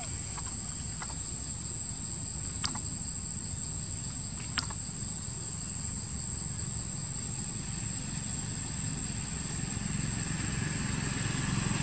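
Steady high-pitched insect drone over a low rumble, with two brief sharp sounds about three and four and a half seconds in; the rumble grows a little louder near the end.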